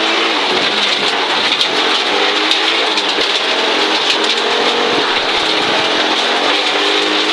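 Audi Quattro Group B's turbocharged five-cylinder engine heard from inside the cabin at speed, its pitch rising and falling repeatedly, over a steady hiss of tyres on gravel with scattered sharp ticks of stones striking the underside.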